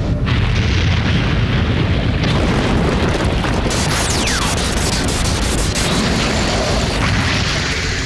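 Cartoon explosion sound effect: one long, loud blast that carries on without a break, with a falling whistle about halfway through.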